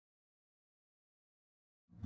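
Dead silence, with no room tone, until a loud sound cuts in abruptly at the very end.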